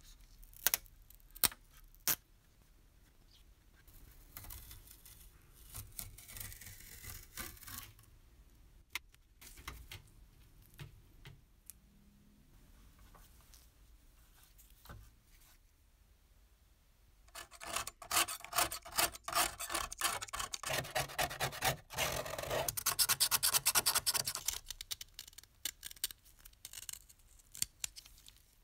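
Hand work on the metal toy: a few sharp clicks at the start, a quiet stretch of soft rubbing and brushing, then from a little past halfway a loud run of rapid scraping strokes of a snap-off utility-knife blade across a painted sheet-metal part, stripping the old paint.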